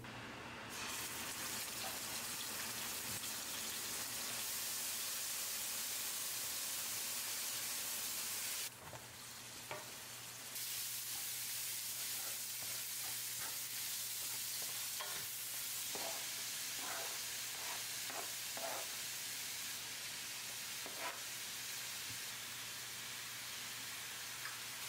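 Minced-meat sauce with shiitake mushrooms and dried tofu sizzling as it fries in a pan, with a spatula stirring it in scattered strokes. The sizzle drops out for about two seconds around nine seconds in, then resumes.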